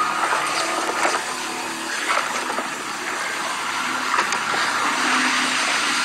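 Storm on a sailing ship: a steady rush of wind and sea, with scattered short knocks and faint drawn-out tones.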